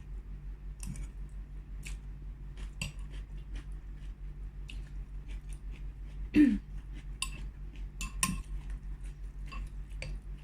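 Eating utensils clicking and scraping against a bowl of soup in scattered light taps, with one louder brief sound with a falling pitch about six seconds in.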